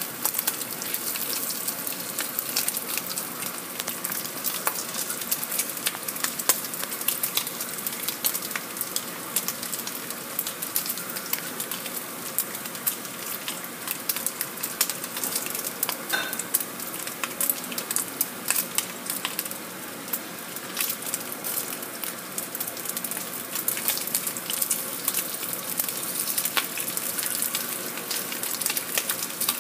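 Bacon strips frying in hot fat in a frying pan: a steady sizzle thick with many small crackling pops.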